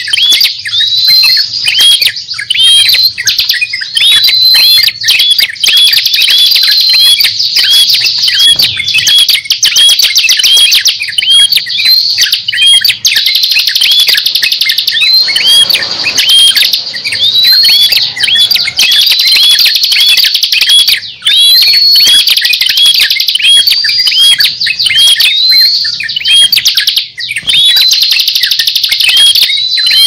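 Bird-lure recording of prenjak and ciblek prinias and trucukan (yellow-vented bulbul): rapid, overlapping high chirps and short rising whistle notes, repeated without a break.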